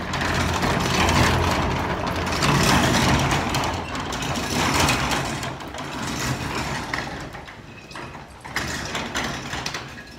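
A horse nosing and breathing right against the phone, making loud uneven rubbing and snuffling noise over a steady low hum. Both fade in the second half as the horse draws back.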